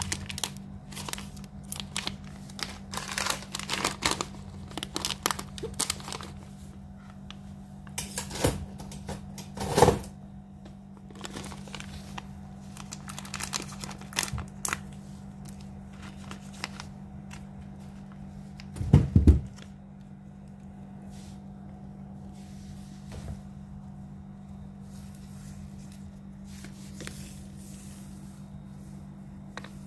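Foil sachets of Bravery cat food crinkled and torn open by hand, a dense run of crackling through the first half that thins to scattered crackles later, with two louder knocks, about ten seconds in and again near twenty. A steady low hum sits underneath.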